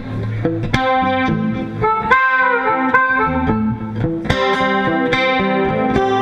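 Blues band playing an instrumental passage, with a guitar leading in struck notes, some bent in pitch, over a low bass line.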